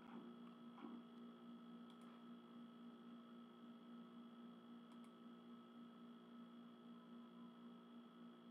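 Near silence: a faint steady electrical hum of several thin tones, with two faint clicks, about two and five seconds in.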